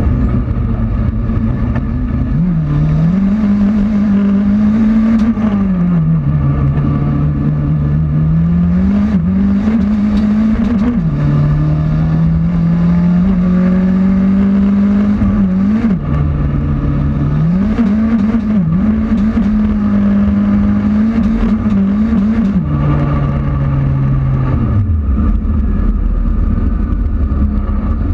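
Turbocharged VW Polo race car's engine heard from inside the cockpit, under hard acceleration, the revs climbing and falling repeatedly through gear changes. About 25 s in the revs drop away to a low steady note.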